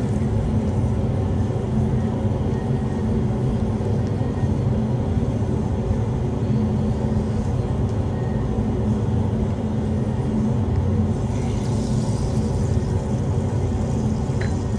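Laboratory fume hood's exhaust fan running with a steady low hum, with a faint hiss near the end.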